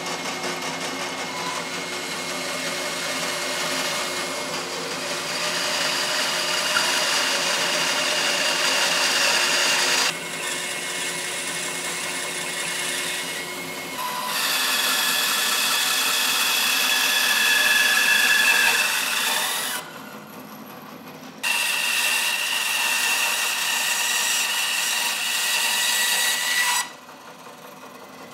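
Bandsaw with a 1/4-inch 3 TPI blade cutting a curve through a thick laminated blank of sapele, maple and birch ply. The cut comes in three stretches, each with a higher whine while the blade is in the wood, and the machine runs lighter in between.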